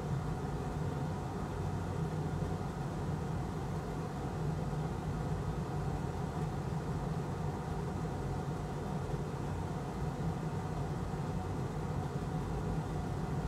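Steady low machine hum with an even hiss behind it, unchanging throughout.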